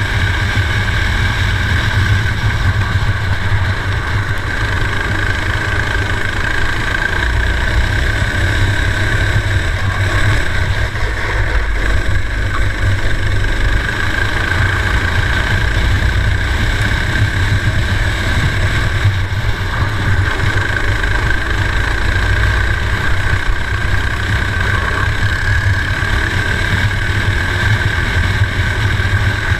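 Four-stroke racing kart engine running hard at race pace, recorded onboard, at a fairly steady pitch.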